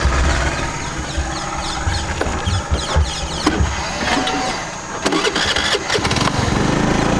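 Small motor scooter engine starting up about six seconds in and then running steadily, after a few sharp clicks; before that, low irregular rumbling that sounds like wind buffeting the microphone.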